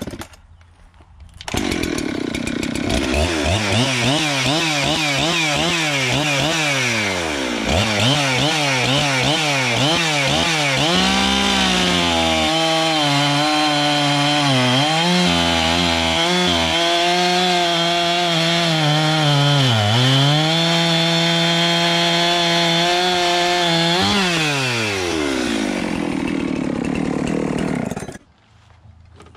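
Large two-stroke chainsaw revved up and down several times, then held at full throttle through a log cut of about twelve seconds. The engine note sags briefly a few times under load, rises as the bar comes free, drops to idle, and cuts out near the end.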